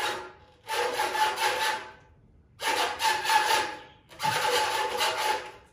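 Three rasping whoosh sound effects in a row, each about a second and a half long and fading out, with the same faint steady tone inside each: an edited transition sound effect.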